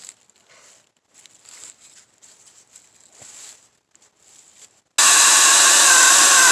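Faint rustling of leaves and a log being shifted by hand. About five seconds in, a WEN 16-inch cordless electric chainsaw starts abruptly at full speed and runs steadily as it cuts into the log.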